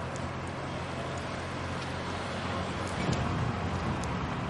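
Railway station background noise with a steady low mechanical hum, joined about three seconds in by wind buffeting the microphone.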